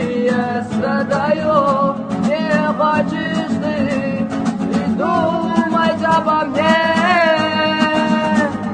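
Music: a love song with strummed guitar accompaniment and a melodic lead line with vibrato, holding one long note near the end.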